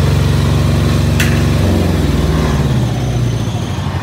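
Air-cooled generator engine running steadily, with a short click about a second in; partway through its running note changes, then drops and fades toward the end.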